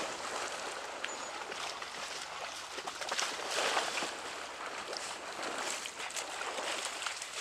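Water sloshing and splashing around a person wading in flooded timber, with scattered small splashes and ticks, loudest a little past the middle.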